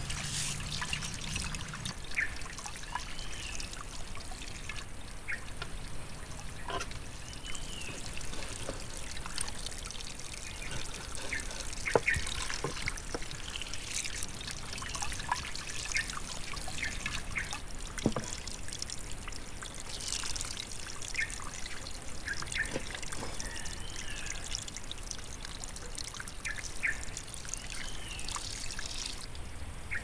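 Water trickling and pouring into a basin as food is rinsed by hand, with scattered small clicks and a few sharper knocks.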